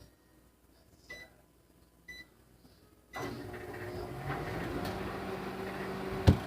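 Microwave oven keypad beeping twice, then about three seconds in the oven starts running with a steady hum as it heats a bar of Ivory soap. A single sharp knock near the end is the loudest sound.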